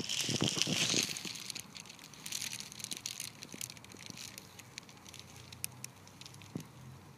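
Footsteps crunching on dry dirt and grit, loudest in the first second, then sparse crackles and clicks as the walker steps and shifts about.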